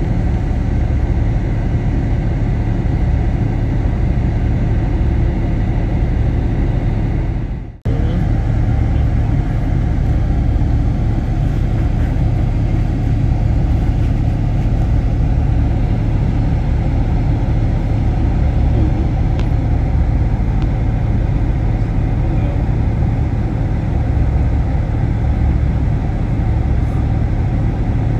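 Steady low rumble of a motor vehicle running, cutting out for a moment about eight seconds in.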